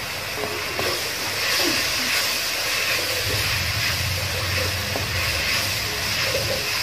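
Sliced onions, green chillies and curry leaves sizzling steadily in hot oil in a kadai while a wooden spatula stirs them, with a few faint ticks from the stirring.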